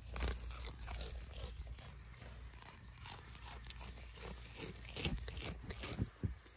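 A goat tearing off and chewing fresh grass and clover right at the microphone: a run of quick, crisp crunching bites.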